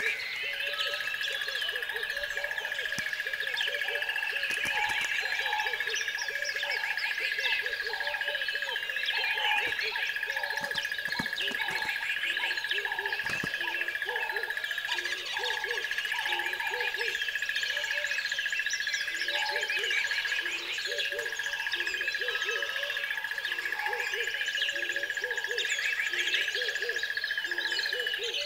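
Nature ambience: many small birds chirping over a steady high tone, with low calls repeating about once a second underneath.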